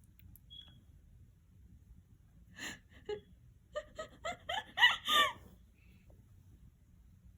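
A person's high-pitched voice: a breathy gasp, then a quick run of about six short cries that bend up and down, over about a second and a half.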